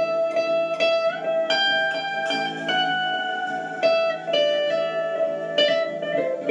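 Electric guitar playing a slow melody of picked notes, some bent or slid up in pitch, over a note left ringing.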